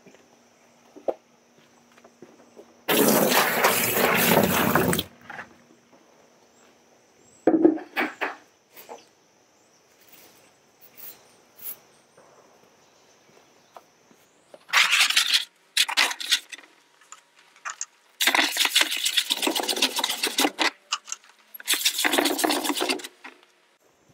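Water splashing and gushing in a series of bursts, the longest about two seconds, as a water softener's brine tank is emptied and rinsed of dirty brine.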